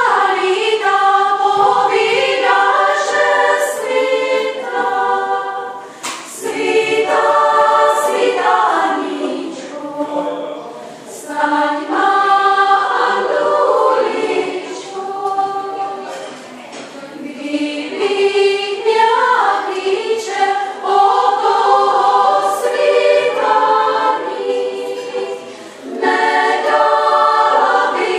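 Women's choir singing a cappella, in phrases with brief breaths between them.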